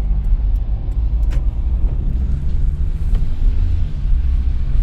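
Steady low rumble of a car's engine and tyres on the road, heard from inside the cabin while driving, with a light click about a second in.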